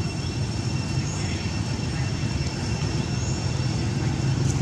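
Steady outdoor background noise: a low rumble with a thin, steady high-pitched whine above it and a few faint short chirps.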